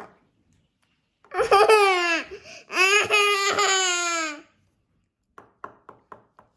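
furReal Mama Josie interactive kangaroo toy playing a recorded baby-like laughing sound through its speaker, in two long, gently falling calls. A run of quick, faint clicks follows near the end.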